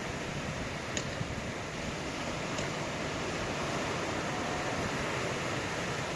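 Ocean surf washing steadily in a constant noisy rush, with wind, swelling a little louder in the second half.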